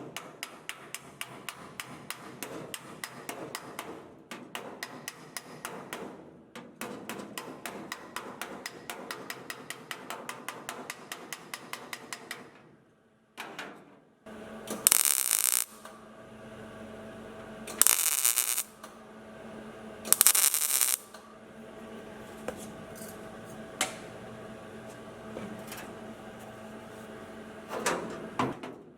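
A hammer tapping sheet metal quickly and evenly, about five light blows a second, for roughly twelve seconds. After a pause come three loud hissing bursts of about a second each over a steady low hum, with a few single knocks.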